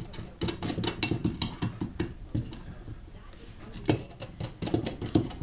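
Metal parts clicking and clinking against each other in quick irregular runs, with a short pause about three seconds in.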